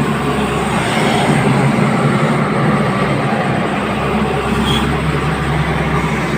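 An excavator's diesel engine and hydraulics running steadily under load as it works the coal slurry.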